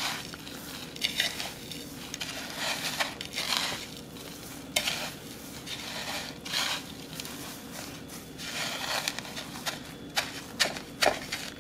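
Breadcrumbs rustling and scraping against a ceramic plate as a potato cake is pressed and rolled in them by hand, in irregular gritty strokes over a faint steady hum.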